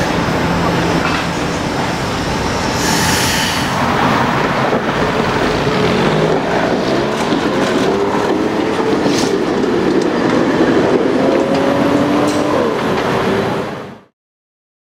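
Streetcar running along steel rails, with a loud, steady rumble and, from about six seconds in, wavering wheel squeal. The sound cuts off suddenly near the end.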